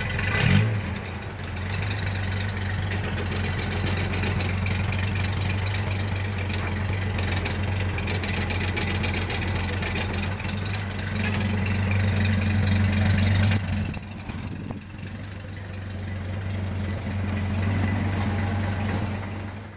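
A 1960s Ford Mustang's engine revs briefly right at the start, then idles steadily.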